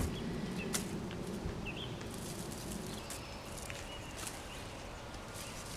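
Soft rustling of straw mulch and hardneck garlic stalks being pulled and handled, with a few light crackles.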